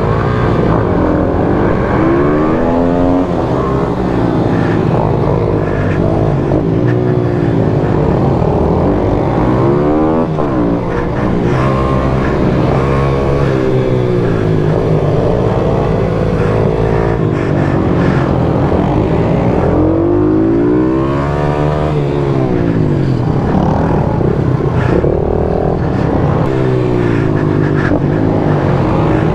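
Pit bike engine revving hard during a race, its pitch rising and falling again and again as the rider accelerates out of corners and shuts off into them.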